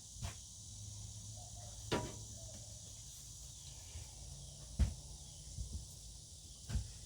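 About four light knocks and taps, the loudest a little past the middle, as a picture frame and its parts are handled for assembly, over a low steady hum.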